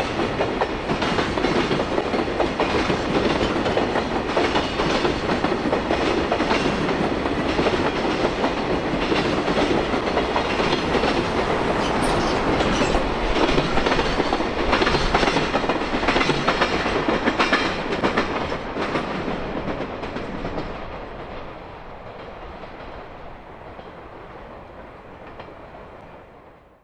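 JR Freight container train of Koki flat wagons rolling past, a steady rumble with wheels clacking over the rail joints. It dies away from about 20 seconds in as the last wagons go by.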